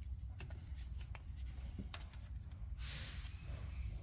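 Small clicks and light scratching of a metal pick tool working at a plastic PCV vacuum hose fitting, with a short breathy hiss about three seconds in, over a low steady hum.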